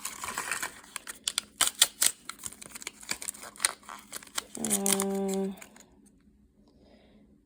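Thin plastic wrapping crinkling and crackling in quick, irregular clicks as a miniature toy is unwrapped by hand. A brief steady hum follows about five seconds in.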